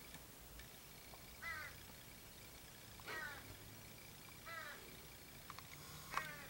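Young crows giving faint whining begging calls while they feed: four short calls about a second and a half apart, each dropping in pitch.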